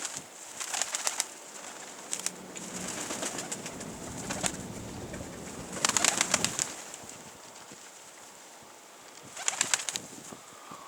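Domestic pigeons' wings flapping and clapping in short rapid bursts, five times, with a faint low coo.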